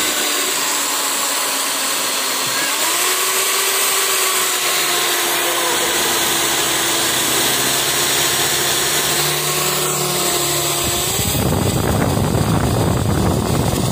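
Corded electric hand drill running steadily with a whine, boring a hole into a small hand-carved fishing-lure body held in the fingers. Its pitch rises about three seconds in, and the sound turns rougher and heavier about eleven seconds in.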